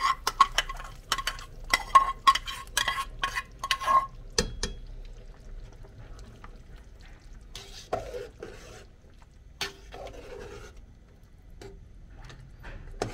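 A metal spoon scrapes and taps against a small metal pan as tomato paste is scraped out, a quick run of ringing clinks over the first four seconds. Then softer swishes as a spoon stirs the broth in a large aluminium pot, with an occasional clink.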